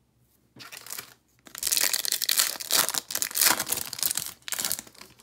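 Trading card pack wrapper of a Marvel Annual 2021-22 hobby pack being torn open by hand: a couple of short rustles, then about three and a half seconds of loud, continuous crinkling and tearing.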